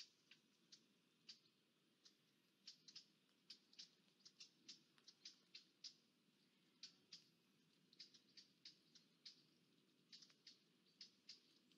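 Faint, irregular ticking of raindrops striking the nest camera's housing, a few to several sharp ticks a second over a low background hiss.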